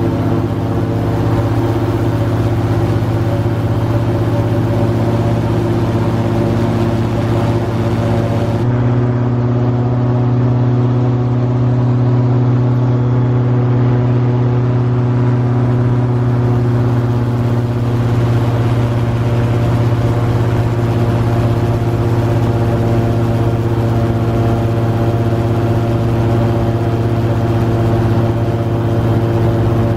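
Airboat engine and propeller running steadily at speed, a loud even drone. The high hiss drops away suddenly about nine seconds in, while the drone carries on.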